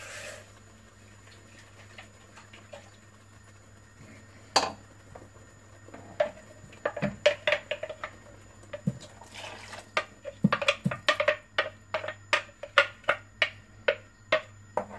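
A spoon knocking and scraping against a mixer-grinder jar as the ground paste and rinse water are emptied into a pot. A lone click comes about four seconds in, scattered taps follow, and there is a quick run of taps, several a second, in the last few seconds.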